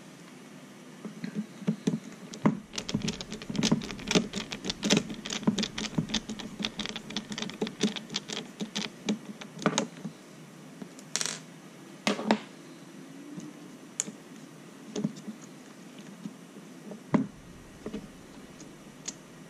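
Quick clatter of small plastic clicks and rattles as the radio transmitter's stick gimbal is handled and fitted back into its case. After about ten seconds come two short scrapes, then only scattered single clicks.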